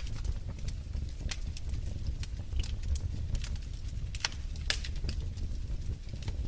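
Wood fire burning in a fireplace, crackling and popping in irregular sharp snaps over a steady low rumble of the flames, with a few louder pops about four and a half seconds in.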